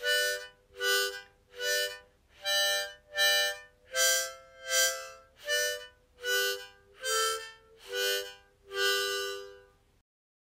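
Background music: short held chords with rich overtones played in a steady pulse, about four every three seconds, stopping abruptly near the end.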